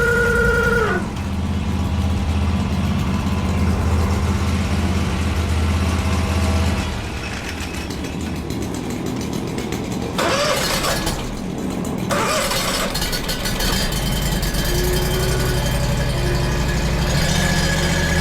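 An engine running with a steady low hum; a high whine over it cuts off about a second in. The engine note drops about a third of the way through and builds again near the end.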